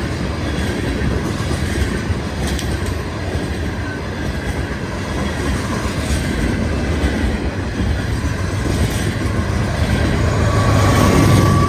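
Union Pacific freight train rolling past, a steady loud rumble and clatter of wheels on rail. Near the end the low rumble swells and a thin high wheel-squeal tone comes in.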